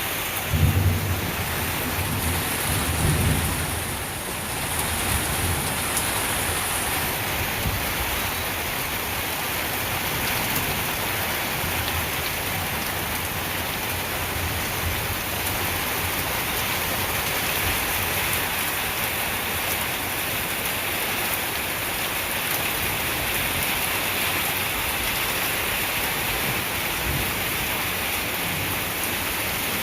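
Steady rain falling in a thunderstorm, with a low rumble of thunder in the first few seconds.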